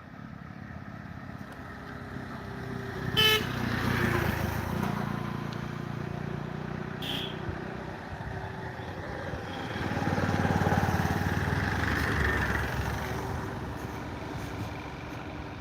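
Road traffic: a short horn toot about three seconds in, then motor vehicles passing, with engine and road noise swelling and fading twice, loudest about ten to twelve seconds in.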